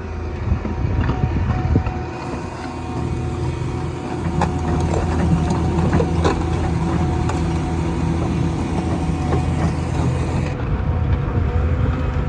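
Petrol plate compactor running steadily, its engine humming with a clattering, rattling vibration.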